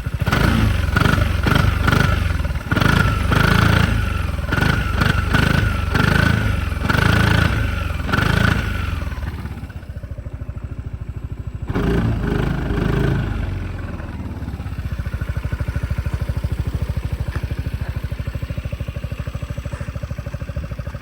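Piaggio Beverly 400 S scooter's single-cylinder four-stroke engine through its stock exhaust, blipped in a quick series of revs for about nine seconds. It drops back, gives one more short rev, then settles into a steady idle.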